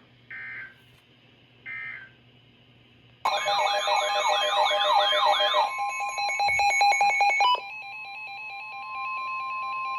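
Weather alert radios sounding for an incoming warning. Two short beeps come first. About three seconds in, a loud warbling alarm starts, and it changes to fast pulsing beeps about two seconds later. About seven and a half seconds in it settles into one long steady attention tone, the NOAA Weather Radio tone that comes before the spoken warning.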